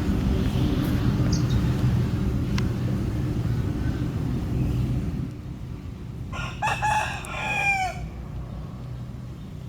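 A rooster crows once, about two thirds of the way through: one call of about a second and a half that falls in pitch at the end. Before it, a steady low rumble runs through the first half and fades out.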